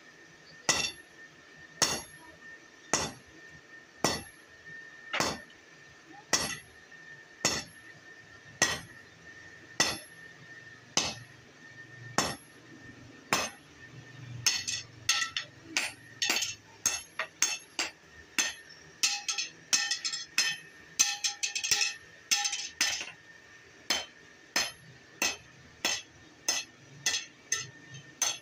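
Hand hammer striking red-hot steel on an anvil while forging a tyre lever, sharp ringing metallic blows. The blows come about once a second, quicken to several a second around the middle, then settle back to about once a second.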